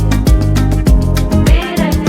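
Background music with a steady, driving beat: a thumping kick drum about three times a second under bass notes and a fast, bright hi-hat, in a Latin dance style.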